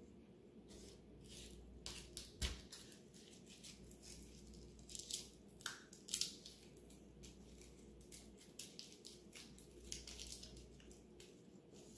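Garlic cloves being peeled by hand: faint, irregular crackling and rustling of dry papery skins, with a few sharper snaps.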